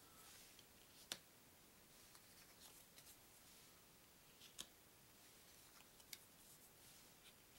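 Near silence broken by a few faint clicks and taps, spaced a second or more apart: paper trivia cards being lifted off a small stack and set down on a wooden tabletop.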